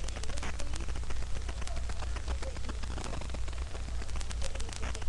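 A dog chewing and mouthing a plush toy, making irregular wet clicks and smacks, over a steady low hum.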